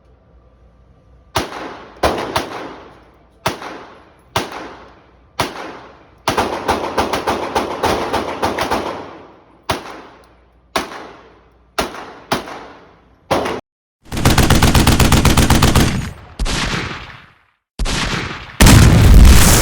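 Gunfire: after a short quiet start, single shots about a second apart, then a quick string of shots, more single shots, and in the last few seconds long bursts of very rapid fire.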